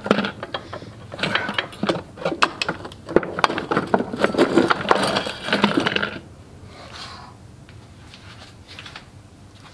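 Metal parts of a torn-down cast-iron Kohler K301 engine clinking and clattering as they are handled by hand inside the open crankcase, among loose broken pieces from a thrown connecting rod. The clatter is dense for about six seconds, then dies down to a few faint ticks.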